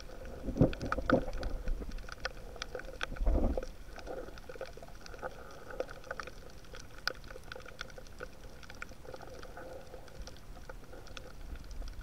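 Underwater sound picked up through an action camera's housing in shallow seawater over seaweed: scattered sharp clicks and crackles over a low rumble of moving water, with a faint steady hum. The rumble swells twice, about half a second to a second in and again around three and a half seconds.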